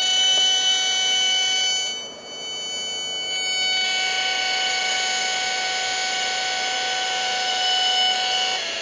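Buzzy square-wave tone from a homemade breadboard oscillator, a Schmitt-trigger NAND gate driving an LM386 amplifier and small speaker, held at a steady pitch. About two seconds in it turns softer and duller, then is back to full strength by about four seconds. Its pitch drops slightly near the end.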